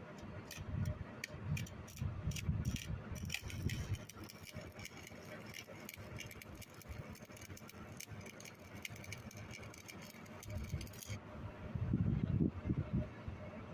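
Rapid metallic clinking and rattling, many sharp clicks in quick succession that stop about eleven seconds in, with low rumbling bursts at the start and again near the end.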